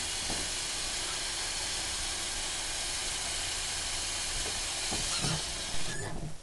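Kitchen faucet running into a plastic tub, filling it with water: a steady hiss of water splashing in the tub, which stops near the end.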